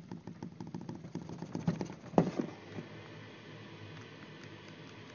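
Light clicks and rustling from a plastic airsoft pistol being handled, with one sharper click about two seconds in, then only faint background noise.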